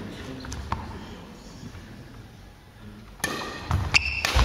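Badminton rally on a wooden sports-hall court. It is quiet at first with a couple of faint taps; about three seconds in come sharp racket strikes on the shuttlecock, thudding footsteps and short squeaks of shoes on the floor.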